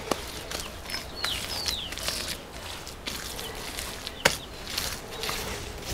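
Hands scraping and pressing earth and mud around adobe blocks, with a sharp knock about four seconds in. Two short falling bird chirps about a second in.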